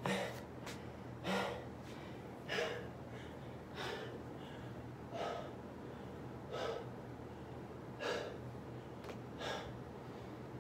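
A man's heavy breathing as he recovers from a set of push-ups, one loud breath about every 1.3 seconds, eight in all.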